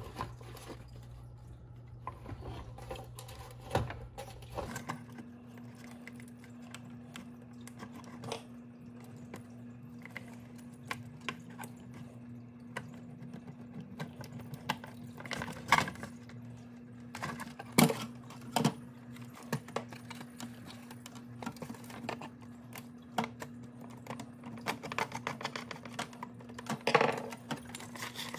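Scattered small clicks and knocks of hard plastic parts being handled and fitted, with a screwdriver driving a screw into the plastic body of a Big Mouth Billy Bass singing fish as its head motor is reinstalled. A faint steady hum runs underneath.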